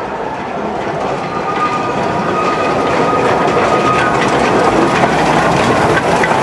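Narrow-gauge steam locomotive and its passenger cars approaching and passing close by on the track, growing steadily louder.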